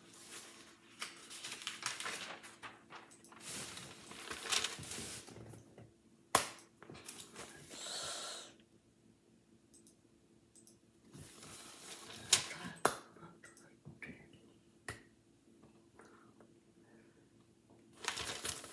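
Hands and sleeves rustling in irregular bursts, with a few sharp slaps or clicks, as a person signs in ASL close to the microphone. A short breathy sound comes about eight seconds in, and a faint steady hum runs underneath.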